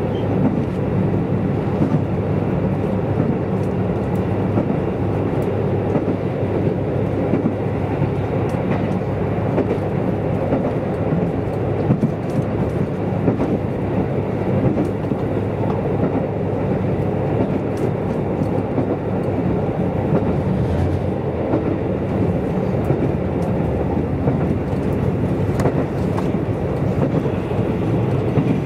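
Steady running noise heard inside the cabin of a KiHa 185 series diesel railcar at speed: a low, even rumble of engine and wheels on rail, with scattered light clicks throughout.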